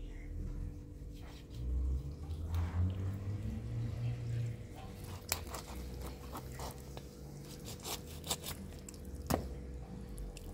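Scattered light clicks and knocks of objects being handled, over a steady faint hum and low rumbling.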